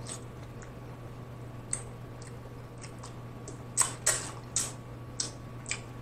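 Wet lip smacks and sucking while eating sauce-covered crab meat: scattered short smacks, then a quicker run of several in the second half. A steady low hum lies underneath.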